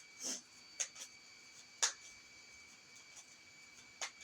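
Tarot cards being handled between readings: four light taps and clicks, the sharpest about two seconds in, over a faint steady high-pitched tone.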